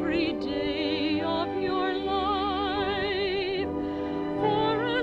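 Music: an operatic voice singing held notes with wide vibrato over sustained accompaniment.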